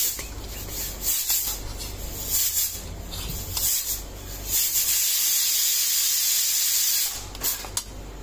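Steel fork scraping and rubbing against a stainless steel plate while cutting through an omelette, in several short strokes, followed by a steady hiss lasting a couple of seconds and two light clicks near the end.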